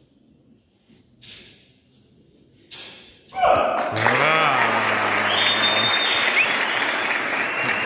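A crowd in a sports hall bursts into cheering and applause about three seconds in, with shouting voices over the clapping. Before that there are two brief, sharp noises.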